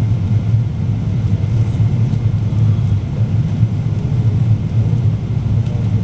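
Steady low rumble of engine and airflow noise inside a Boeing 777-200ER's cabin during the approach to landing.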